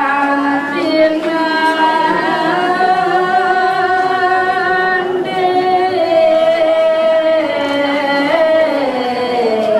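Slow ceremonial singing: one voice holding long notes that slide gently from pitch to pitch, without accompaniment.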